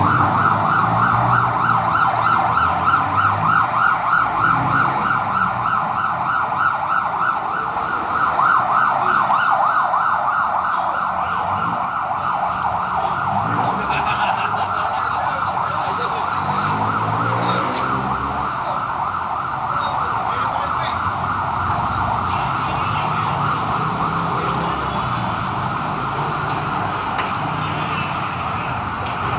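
An alarm sounding continuously as a fast, rapidly pulsing tone, louder over the first ten seconds or so.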